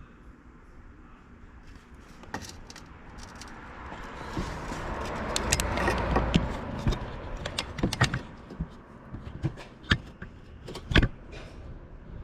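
A passing vehicle's noise swells and fades, followed by a few sharp metallic clinks and knocks.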